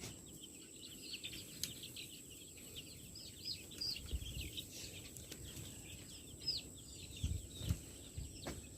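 A brood of young layer chicks peeping, a dense stream of short, high cheeps that slide down in pitch.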